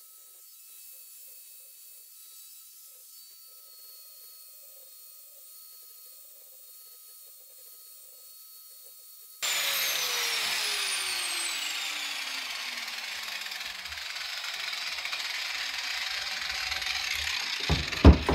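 Angle grinder dressing the edge of a steel anvil. For the first half there is only a faint, steady whine. About nine seconds in, a loud grinding hiss starts abruptly as the disc bites the anvil's edge and keeps on, with a few falling tones at first. A few sharp knocks come at the very end.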